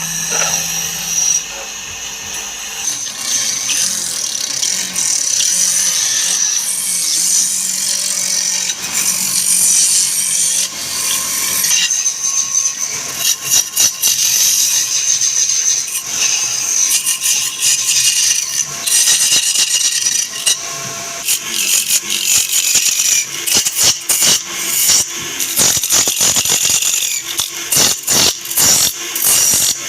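Power tool working wood: a steady high-pitched scraping hiss, broken by many short sharp scrapes and clicks in the second half.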